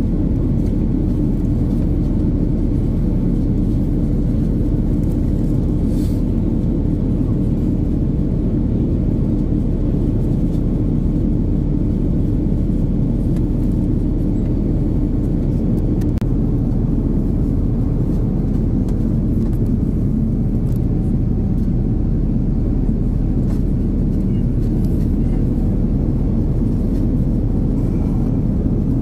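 Airbus A330-900neo cabin noise from its Rolls-Royce Trent 7000 turbofans at climb power, heard from a seat beside the engine: a steady deep rumble with a faint steady hum in it.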